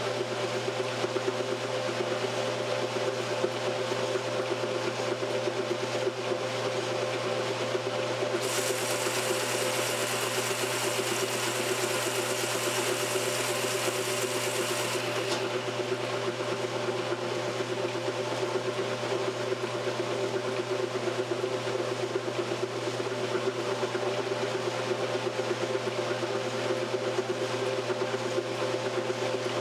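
1968 Kenmore top-loading washer agitating a load: a steady machine hum from the motor and drive as the agitator churns the clothes through the water. A hiss joins in for several seconds in the middle.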